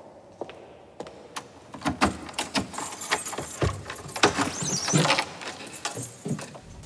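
A few footsteps, then from about two seconds in a bunch of keys jangling and clicking at a door lock for several seconds.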